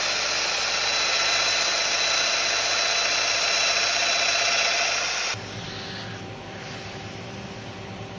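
Festool Domino joiner running as it plunges a mortise into the end of a hardwood board: a loud, steady, high-pitched motor whine with cutting noise. About five seconds in it cuts off to a much quieter, steady low hum.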